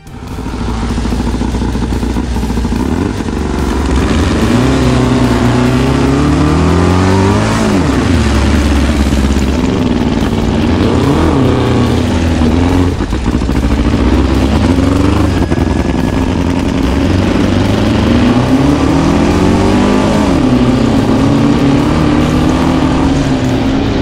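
Sand rail engines racing across the sand, revving up and dropping back again and again as they accelerate and shift gears. The sound swells in over the first second, then stays loud.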